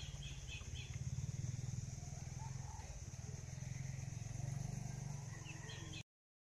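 Low, steady small-engine rumble with a fine, even pulse, with a steady high-pitched hum above it and a few faint chirps. The sound cuts off suddenly about six seconds in.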